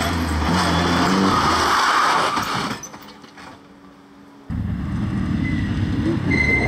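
A Renault Clio rally car's engine running hard through a bend. The engine sound drops away sharply a little under three seconds in, as the car goes off into the roadside ditch. About four and a half seconds in, a classic Porsche 911 rally car's flat-six cuts in loud and keeps running.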